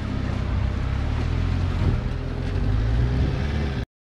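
A vehicle engine idling with a steady low rumble, with wind noise on the microphone; the sound cuts off abruptly near the end.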